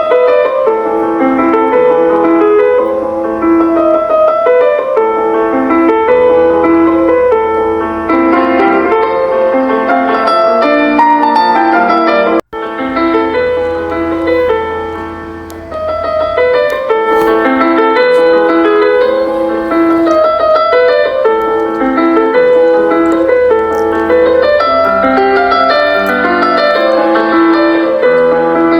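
Background piano music, a continuous run of notes, cut off for an instant about twelve seconds in.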